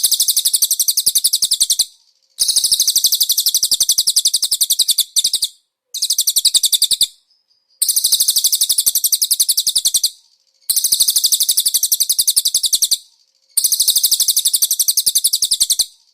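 Cililin songbird singing a rapid-fire, high-pitched chatter in repeated phrases about two seconds long, six of them with short breaks between. This recording is the kind used as masteran, training song for konin birds to copy.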